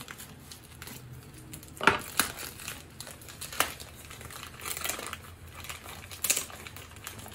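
White shipping mailer being slit with a knife and pulled open by hand: crinkling and rustling of the packaging, with a couple of sharp clicks about two seconds in.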